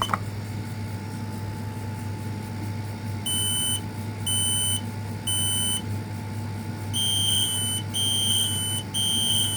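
Kidde smoke alarms sounding the temporal-three fire pattern: a high-pitched group of three beeps starting about three seconds in, a pause, then a second, louder group of three as the interconnected alarms sound together. A steady low hum runs underneath.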